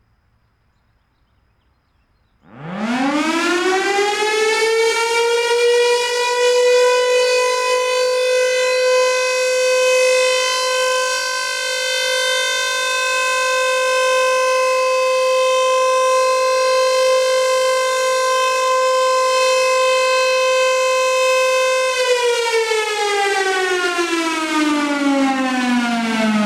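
Federal Sign & Signal Thunderbolt 1000 outdoor warning siren sounding a short alert: about two and a half seconds in it winds up to a steady, loud tone. Because the siren is not rotating, the tone holds without rising and falling. Near the end the pitch winds down.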